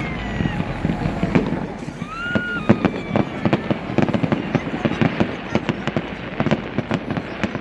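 Fireworks display: many sharp bangs and crackling bursts in quick succession over a low rumble.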